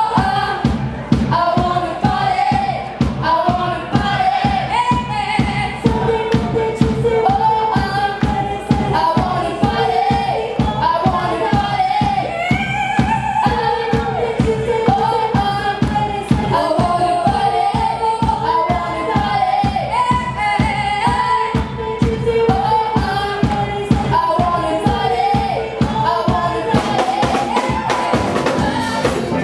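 Live band music: two female voices singing a pop-rock song over drums keeping a steady beat, the drums hitting harder near the end.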